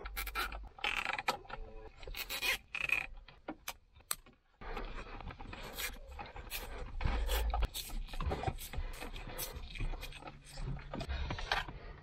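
Hands securing loose wiring in a car's centre console: irregular rubbing and scraping with many scattered small clicks, over low rumbling handling bumps, and a short pause about four seconds in.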